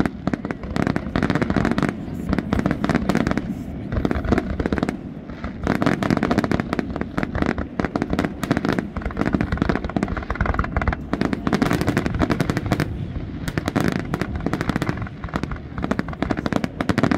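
Fireworks going off in rapid, almost continuous volleys of bangs and crackling, with a brief lull about four seconds in.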